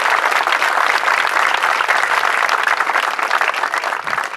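Audience applauding: a dense, steady round of clapping that starts to fade near the end.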